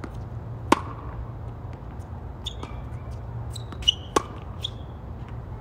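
Tennis ball struck hard with a racket on a serve, a sharp crack about a second in, then a rally: two more sharp hits of ball on racket and court close together about four seconds in, with a few short high squeaks between. A steady low hum runs underneath.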